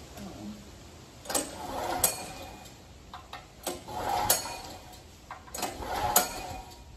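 Recoil pull-starter of a Pretul gasoline portable generator yanked three times, about two seconds apart. Each pull is a quick rattling whir as the engine turns over without catching. It won't start because the fuel tap was left closed, so no fuel was getting through.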